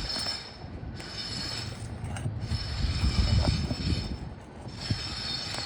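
Pry bar scraping and levering under asphalt roof shingles to work out roofing nails, an irregular run of scrapes, creaks and small clicks that is loudest a little past the middle.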